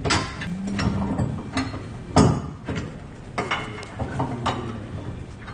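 Metal clinks and knocks as a steel tow hitch receiver is handled and fitted against a pickup truck's frame, with one louder knock about two seconds in.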